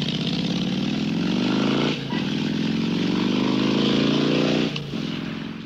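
Motorcycle engine accelerating hard, its pitch rising, dropping at a gear change about two seconds in and climbing again, then easing off near the end.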